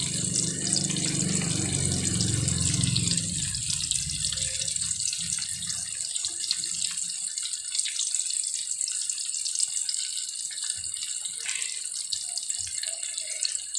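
Steady watery hiss with fine crackling, with a fuller, lower rush of water for the first three seconds or so.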